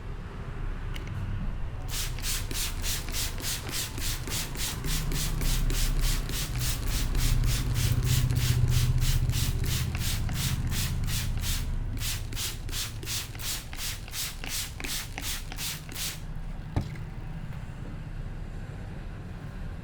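Hands rubbing briskly over hair and scalp in a head massage: an even run of short rubbing strokes, about four a second, starting about two seconds in and stopping a few seconds before the end.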